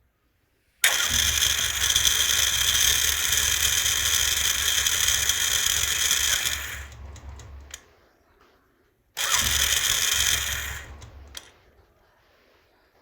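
Electric self-starter of a Royal Enfield Bullet 350 cranking twice: a long crank of about six seconds, then a short one of under two seconds, each starting abruptly and tailing off. The starter's sound is the abnormal one that has suddenly changed, cause unknown to the owner.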